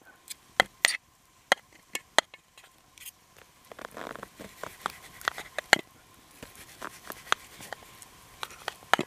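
Metal fork clinking and scraping against a frying pan as strips of raw bacon are turned, a run of sharp irregular clicks with a couple of short scrapes about four and five seconds in.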